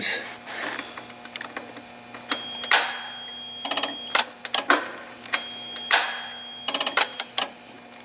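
Forklift starter clicking repeatedly as the key is turned: a run of sharp clicks at uneven intervals, two of them louder. The clicks come from the starter, not from the LPG regulator's fuel-lock solenoid under test, whose plunger fails to pull in, a sign of a weakened coil.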